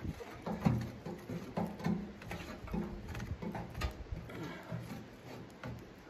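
Light knocks and clinks from a small sheet-metal wood stove, about two a second and irregular, as pieces of fuel are set in its firebox by hand. The steel box rings briefly after each knock.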